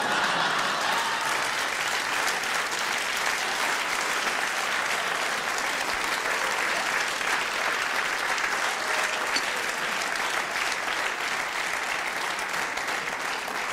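Audience applauding: dense clapping that breaks out abruptly and eases off slightly toward the end.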